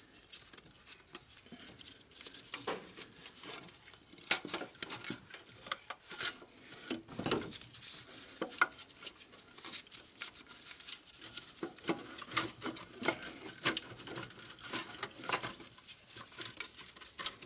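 Irregular light clicks, taps and rubbing as gloved hands work the intake manifolds and the sleeve between them loose from a Sprinter engine, engine parts knocking lightly against each other.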